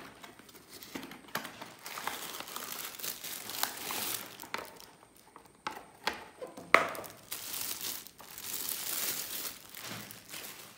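Clear plastic packaging crinkling and rustling, along with a cardboard box being handled, as a knife sharpener is unwrapped; irregular rustles with small clicks and one sharp click about two-thirds of the way through.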